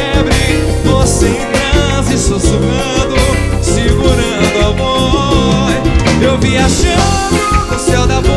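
Live pagode band music, with a drum kit keeping the beat under strummed guitar and cavaquinho.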